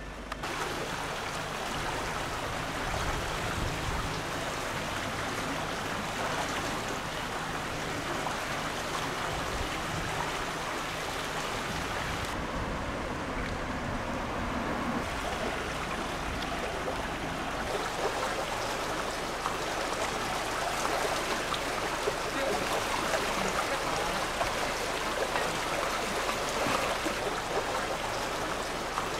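Water flowing steadily along a shallow stone-lined canal, a continuous babbling trickle.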